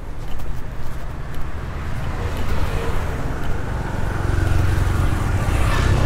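Street traffic with a motor vehicle passing close: its engine rumble grows louder through the second half, with tyre and road noise swelling near the end as it draws nearest.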